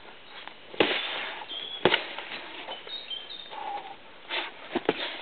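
Sharp thuds of strikes landing on hanging punching bags: four hits, one about a second in, one about two seconds in, then two in quick succession a little past four seconds.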